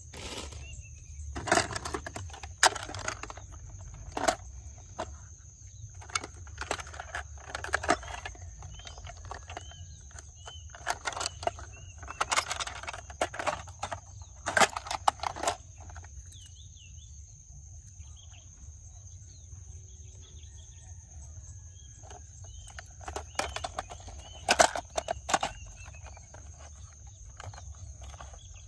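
Plastic toy cars being handled and knocked together: irregular clusters of clicks and clacks, with a quieter stretch in the middle, over a steady low hum.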